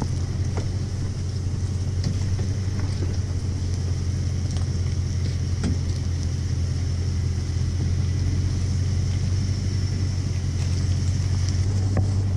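A vehicle engine idling: a steady low hum, with a few faint clicks and knocks over it.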